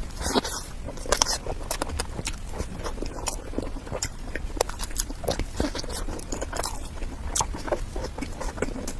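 Close-miked chewing and wet mouth sounds of someone eating soft cake, with many irregular smacks and clicks.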